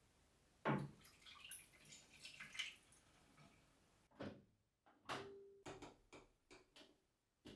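Faint pouring and dripping as homemade liquid laundry detergent goes from a small glass into a Miele top-loading washing machine's dispenser drawer, after a knock about a second in. Then a run of short clicks and knocks as the lid is shut and the program dial is turned.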